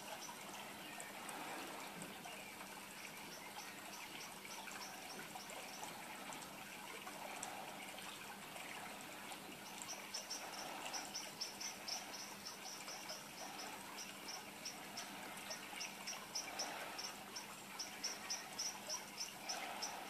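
Faint, rapid high-pitched chirps, several a second, weak at first and stronger from about ten seconds in, over a faint steady low hum.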